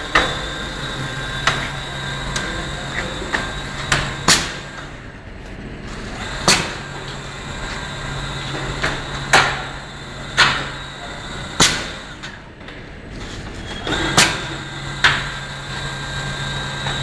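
A PU sole pouring machine and its station conveyor running: sharp metallic clanks at irregular intervals, about ten in all, over a low motor hum that starts and stops in stretches of a few seconds.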